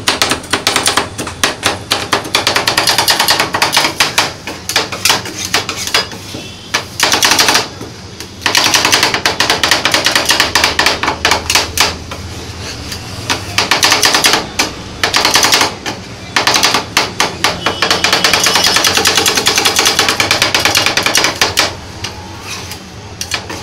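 Two steel spatulas chopping rapidly against a steel ice-cream cold plate: a fast metallic clatter of strikes in long bursts with brief pauses, as an Oreo cookie is chopped into milk for rolled ice cream.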